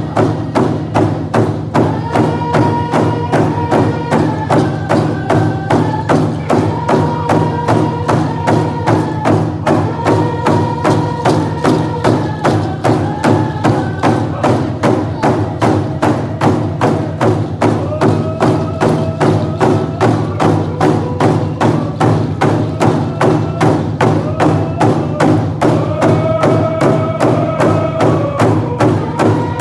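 Coast Salish hand drums beaten together in a steady, even beat. A group of voices sings over them in long held phrases, stronger in the first half and again near the end.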